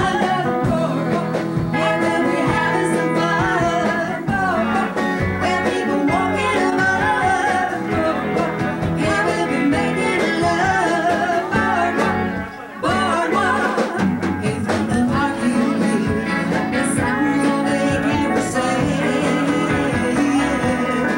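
Live band playing, with electric and acoustic guitars and a woman singing. The music drops out briefly about twelve and a half seconds in.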